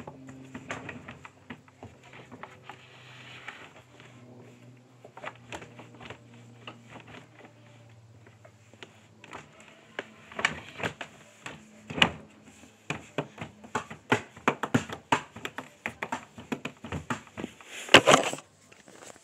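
Irregular small clicks and taps, sparse at first and growing denser and louder in the second half, with a faint low hum under the first half. Near the end comes a loud rustle of the phone being handled.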